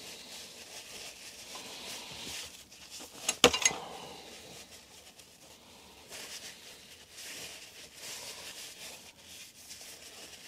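Hand tool and metal damper parts being handled while the Headshok damper's bleed screw is tightened: soft rubbing and scraping, with a couple of sharp clinks about three and a half seconds in, the loudest moment.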